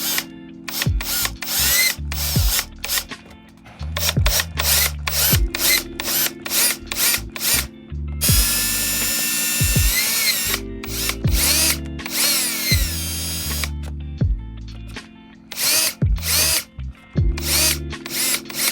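Electric drill running in repeated bursts, starting and stopping, as it enlarges a too-small mounting hole. Background music with a bass line plays along.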